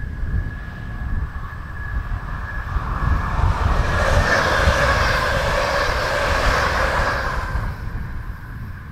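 An electric passenger train running past on the track: a steady high whine as it approaches, then its rolling noise swelling to a peak in the middle and fading near the end as it goes by. A gusty low wind rumble on the microphone lies under it.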